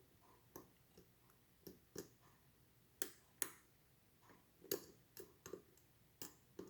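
Faint, irregular small metallic clicks and ticks of lock picks and a tension tool working the pins inside an ASSA 700 lock. There are about a dozen, a few sharper ones near the middle.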